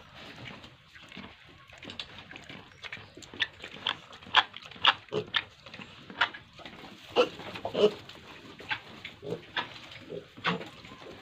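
Pigs grunting and squealing in short, sharp calls, few at first, then coming thick and fast from about three seconds in.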